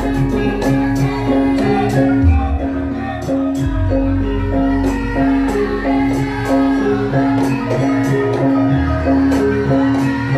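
Loud Javanese gamelan music for lengger dance: a repeated ringing metallophone note over other sustained notes, regular drum strokes and a deep low gong-like hum that drops out and returns.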